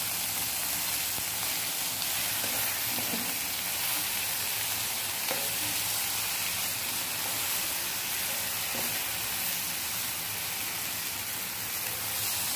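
Tomato egg curry sizzling in oil in a nonstick frying pan while a wooden spatula stirs it, with occasional soft scrapes against the pan. The curry is in its last stage of frying, cooked down until the oil separates and rises to the top.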